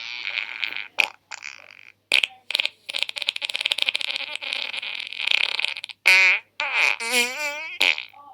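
A string of fart sounds: a few short sputters, then a long, fast rattling one, then several higher, pitched ones that wobble up and down in pitch near the end.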